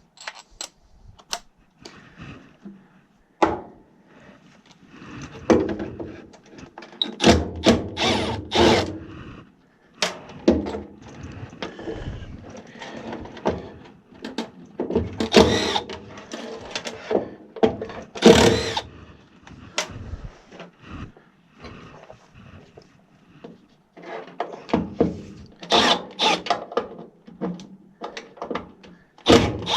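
Irregular clatter and knocks from hands-on furnace work: tools and metal or plastic parts being handled, with a few short noisy bursts that may be a power driver.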